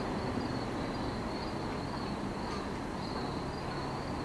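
Insects chirping in an even pulse, about two a second, over a steady low hum and rumble.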